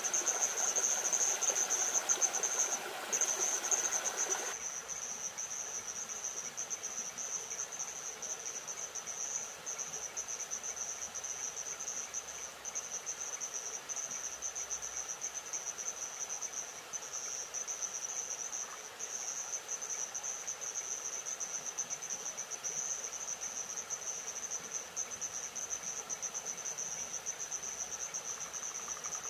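Night insects chirring in a steady, high, finely pulsing trill. For the first four seconds or so a louder rushing noise sits under it, then cuts off suddenly, leaving the insects alone.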